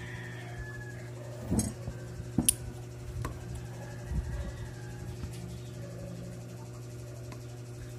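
A few sharp metallic clinks and knocks as a bicycle rear hub is handled and turned over in the hand, over a steady low hum. The loudest clink comes about two and a half seconds in.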